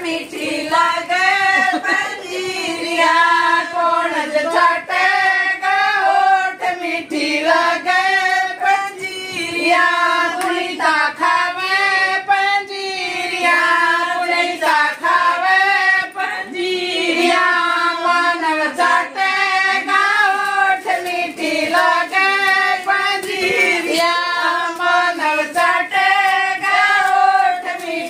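A group of women singing a Hindi folk jachcha geet, a song for a new mother, together without a drum.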